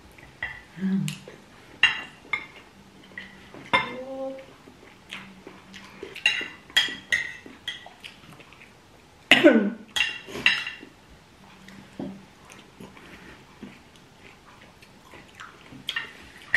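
Metal spoon and fork clinking and scraping against a plate while eating, in irregular clinks. About nine seconds in comes a brief voice sound that falls in pitch.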